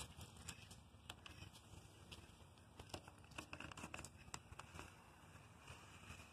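Faint crinkling and rustling of a flame stencil being peeled off freshly sprayed paint, with scattered small ticks as it lifts away.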